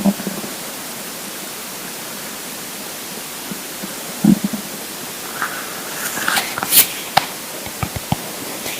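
Hungry empty stomach gurgling over a steady hiss: one short low gurgle about four seconds in, then a run of small pops and clicks over the last few seconds.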